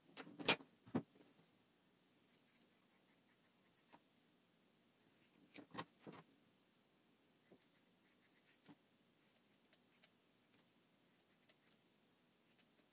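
Faint workbench handling sounds: two sharp knocks about half a second and a second in as tools are set down, then a few quiet clicks and snips of scissors cutting a thin sheet.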